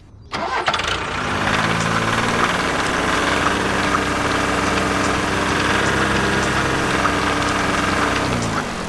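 Tractor engine running steadily under load, its note sliding down near the end as it eases off.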